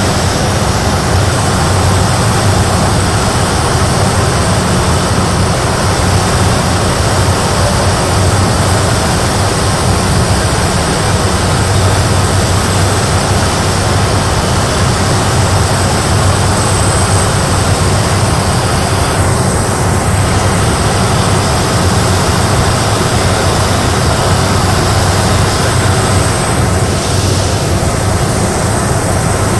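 Cessna Grand Caravan's Pratt & Whitney PT6A turboprop engine and propeller running steadily on final approach, heard loud inside the cockpit: a constant low drone with a thin high whine over it.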